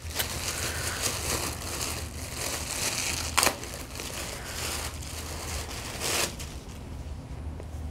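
Crinkly packaging rustling and crumpling as a mail-order shirt is unpacked by hand, with a sharp snap a few seconds in and another short burst of crinkling later on.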